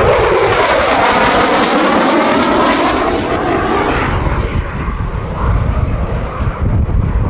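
Eurofighter Typhoon's twin EJ200 jet engines roaring past at high speed, the engine note dropping sharply in pitch as the jet goes by, then the roar receding and its high-pitched hiss fading over the last few seconds.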